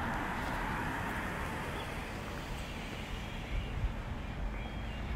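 Street ambience: a passing vehicle's noise fading away over the first couple of seconds, over a low, uneven rumble on the phone's microphone.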